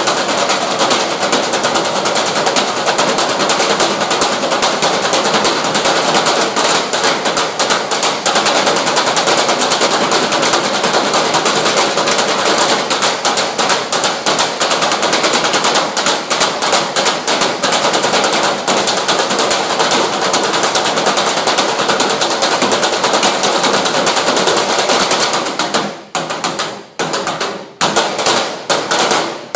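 Drums played in a fast, dense, continuous stream of strokes. About 26 seconds in, this breaks into separate loud hits with short gaps between them.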